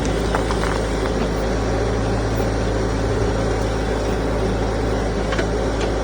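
Backhoe engine running steadily at a low, even speed, with a few faint ticks.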